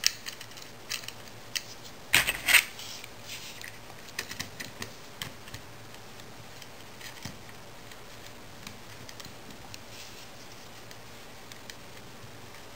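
Small metal clicks and taps from stainless steel wire and a screwdriver being handled on a metal wire-bending jig, as the wire is seated and the jig's clamp screw is turned. The loudest clatter is a short cluster about two seconds in, with a lighter run of ticks a couple of seconds later and only sparse faint ticks after that.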